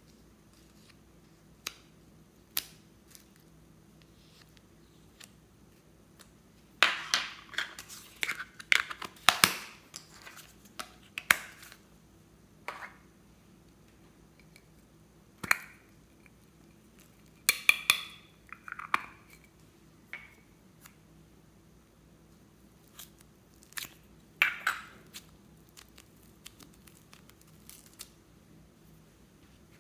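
A spoon and small plastic slime tubs being handled: scattered clicks and taps, with crackly, crunching scrapes as clay is scooped out with the spoon. The loudest, densest cluster of scrapes comes about a quarter of the way in, with shorter bursts around the middle and a couple of seconds before the end.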